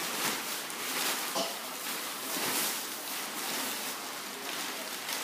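Inflatable Godzilla costume rustling, with a few soft thumps as a child tumbles through a cartwheel.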